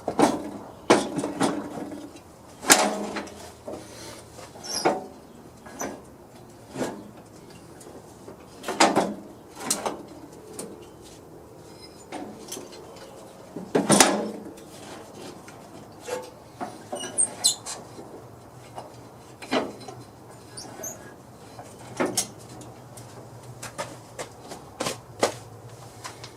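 Irregular knocks and clanks of metal tractor parts and hand tools being handled during reassembly, a few with a short metallic ring.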